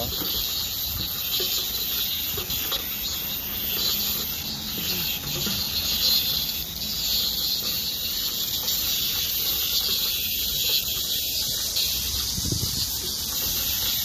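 Chorus of cicadas buzzing steadily, a high continuous drone with no break.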